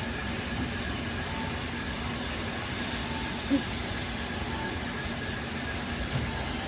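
Steady low rumble and hum of a train, with a short louder sound about halfway through.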